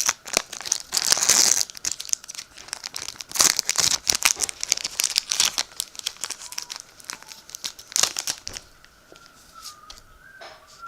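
Foil Pokémon booster pack wrapper crinkling and being torn open, a dense crackly rustle that stops about eight and a half seconds in.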